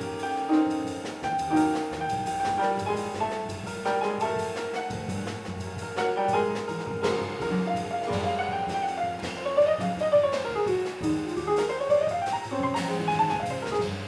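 Small jazz group playing, with a grand piano soloing over upright bass and drums; in the second half the piano plays quick runs that climb and fall.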